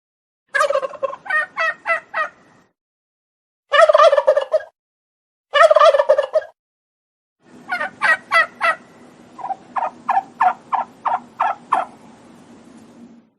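Turkey calling: runs of short, evenly spaced yelping notes, about four a second, and two dense rattling gobble-like bursts of about a second each, the groups set apart by dead silence.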